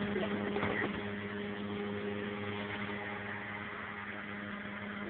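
A steady mechanical hum with a constant low tone, with a few faint brief knocks in the first second.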